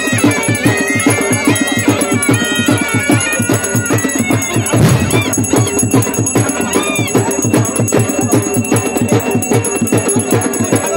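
Temple music: a fast, steady drumbeat of about five strokes a second, with a high, wavering melody line over it.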